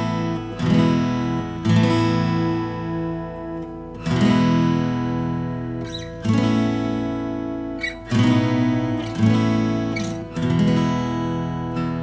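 Blueridge BR-143A acoustic guitar, solid Adirondack spruce top with solid mahogany back and sides, played as strummed chords. Each chord is left to ring and fade, with a new one every one to two seconds.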